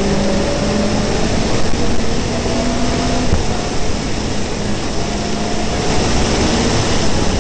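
Rally car engine pulling hard at high revs, heard inside the cabin: its pitch climbs and breaks off several times at the gear changes, over loud road and wind noise.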